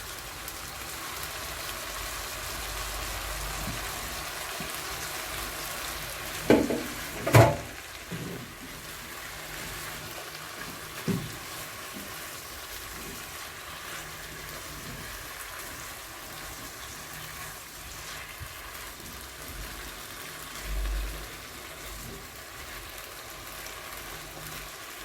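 Shrimp and onions frying in a pan with a steady sizzle, with a couple of loud knocks about six to seven seconds in.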